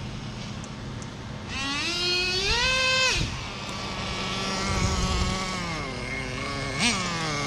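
Traxxas Jato 3.3 nitro RC car's small two-stroke glow engine idling, then revving up in a rising whine for about a second and a half before dropping off sharply. It then runs at a lower pitch, easing down, with a short blip near the end. The owner judges the engine's tune right: it "sounds straight".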